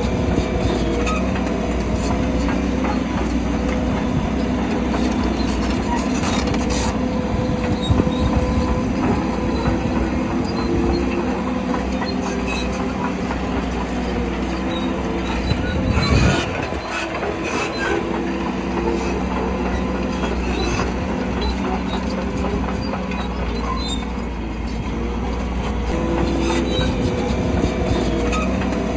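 Shantui crawler bulldozer working, its diesel engine running steadily under its steel tracks, which squeal and clank. There is a single heavy knock just past halfway.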